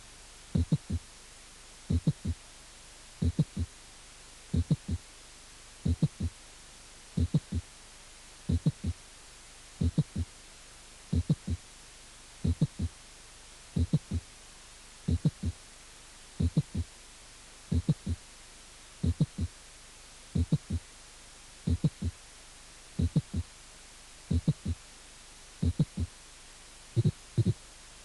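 Recorded heart sounds heard through a stethoscope: a slow, regular rhythm of about 45 beats a minute. Each beat is a quick cluster of the first heart sound, a mid-to-late systolic non-ejection click, and the second heart sound. This kind of click is typical of mitral valve prolapse.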